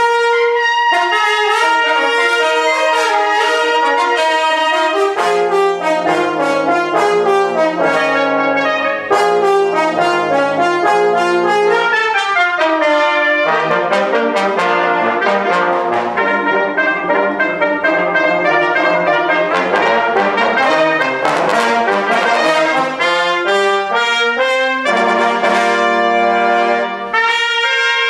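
Brass quintet of two trumpets, French horn, trombone and bass trombone playing a lively New Orleans-style jazz tune, mostly in short detached notes. A low bass line enters about five seconds in, and near the end the parts hold a chord briefly.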